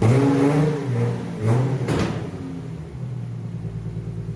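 A car engine running, its revs rising briefly twice in the first two seconds, with a short rush of noise, before it settles to a steady idle.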